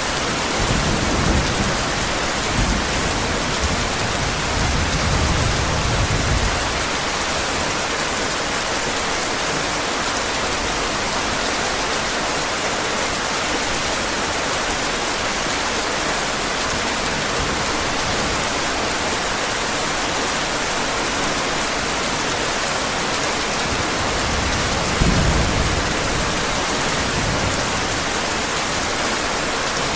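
Steady heavy rain hissing, with low rolls of thunder rumbling under it near the start and again near the end.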